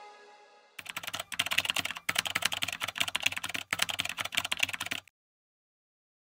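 Rapid typing on a keyboard: a dense run of key clicks with a few short breaks, starting about a second in and stopping abruptly about five seconds in. The tail of background music fades out just before it.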